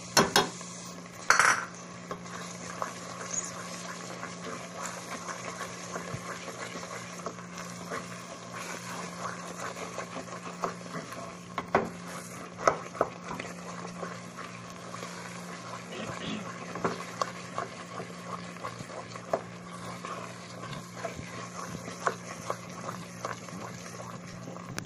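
Wooden spoon stirring and scraping a thick spiced onion paste in a metal pot, with irregular clicks and knocks of the spoon against the pot as garlic and ginger are worked in. Two louder knocks come in the first second and a half.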